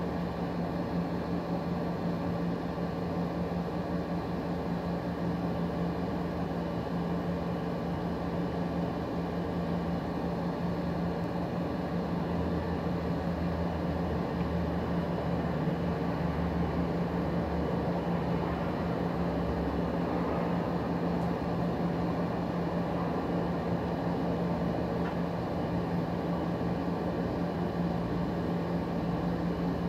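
A machine running steadily: an even low hum over a constant hiss, with no change in level.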